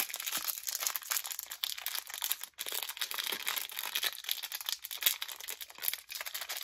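Thin plastic toy blind bag crinkling in the hands as it is worked open, a continuous run of irregular crackles.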